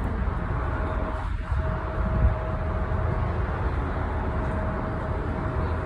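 Jet airliner on final approach: a steady low engine rumble with a thin steady whine over it.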